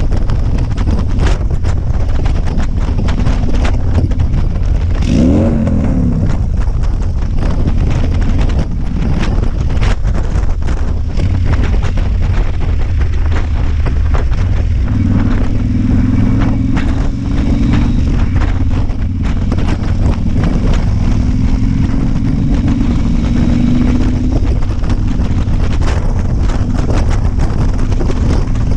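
Motorcycle riding at road speed: heavy wind buffeting on the microphone over the engine's running note. The engine note comes up more clearly from about the middle to near the end, and a brief falling tone is heard about five seconds in.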